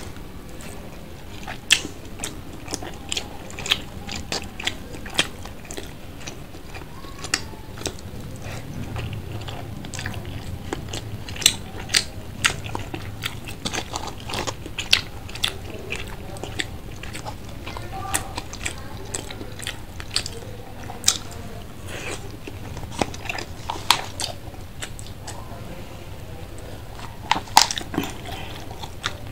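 Close-up chewing and biting of skewered street food, picked up by a lapel microphone: a steady run of sharp, irregular wet mouth clicks and smacks.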